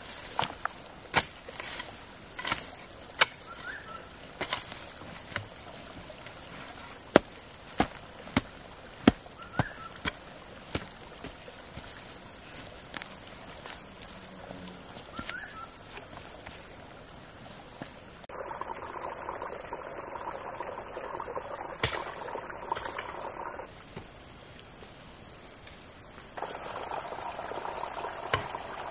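Insects shrilling steadily in a high, even tone. Over the first ten seconds or so come a series of sharp knocks, and later two stretches of rushing water, the first about eighteen seconds in for some five seconds and the second near the end.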